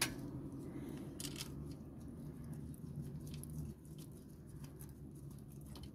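Faint clicks and scrapes of metal bolts being fitted by hand into a truck's clutch slave cylinder mounting, with a small knock at the start, over a low steady hum.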